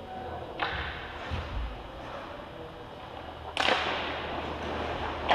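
Two sharp cracks of hockey puck and stick play in a rink, a lighter one about half a second in and a louder one past three and a half seconds, over a steady low hum.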